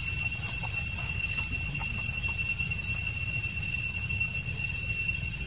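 Steady high-pitched drone of forest insects held on one unchanging pitch, over a low steady rumble.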